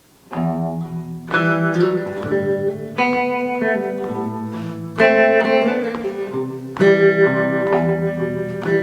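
Guitar playing a song's opening bars before the vocals come in: ringing chords struck about every one and a half to two seconds, starting a moment in.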